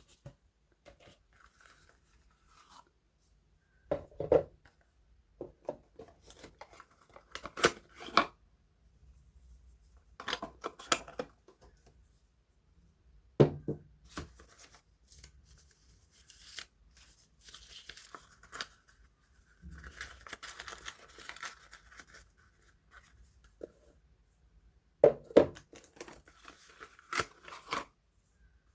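Soap packaging being unpacked by hand: wrappers and packaging crinkling and tearing in irregular bursts, with sharp crackles and quiet pauses between.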